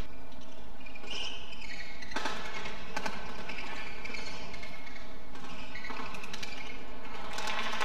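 Badminton rally: rackets striking a shuttlecock with sharp cracks, a couple of separate hits early on and a quick run of them near the end as the exchange speeds up.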